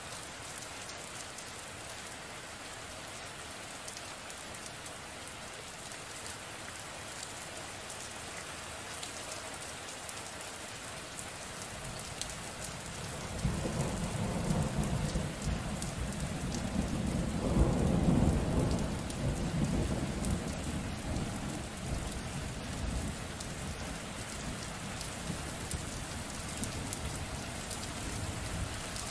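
Steady rain falling, with a long roll of thunder that rises about halfway through, peaks, then slowly rumbles away as the rain continues.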